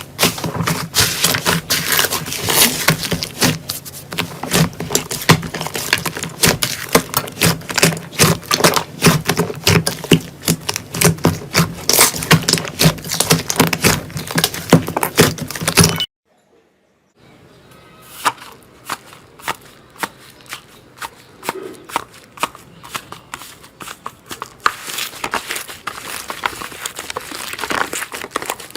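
Slime being squished and pressed by hand, giving dense sticky crackling and popping clicks. About sixteen seconds in, the sound cuts off for a moment, then continues as a quieter stretch of crackling clicks.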